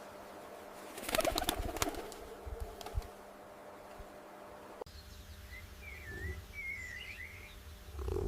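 A quick flurry of wing flaps, as of a bird taking off, about a second in, then after a cut small birds chirping and warbling over a quiet outdoor background.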